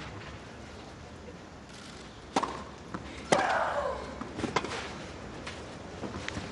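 Tennis rally on clay: several sharp racket-on-ball strikes and bounces, about one a second. The loudest strike, about three seconds in, is followed by a player's drawn-out grunt that falls in pitch.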